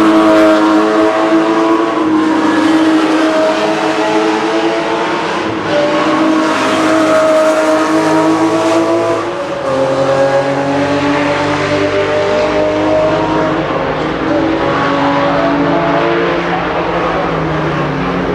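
Porsche sports car engines running, their notes holding fairly steady and shifting in pitch now and then, with a clear drop about nine and a half seconds in.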